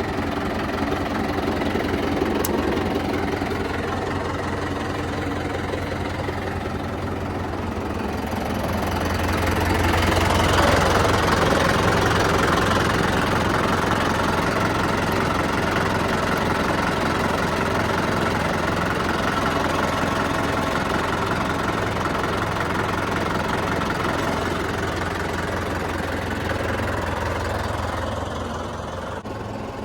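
JCB 3DX backhoe loader's diesel engine running steadily; about a third of the way in it revs up and works harder, holding there until shortly before the end, when it eases back.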